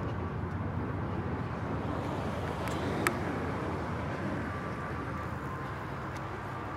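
Steady outdoor city ambience: a low rumble of traffic mixed with wind, with one short sharp click about three seconds in.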